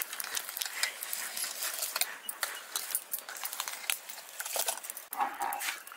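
Washed rice being scraped by hand out of a steel bowl into an aluminium pot of hot water, with an irregular patter of small clicks.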